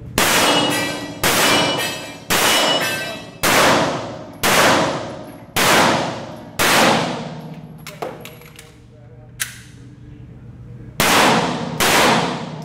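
Nine pistol shots, about one a second, each with a long echoing tail off the range's concrete walls. After the seventh there is a gap of about four seconds with two small sharp clicks, a magazine change, and then two more shots.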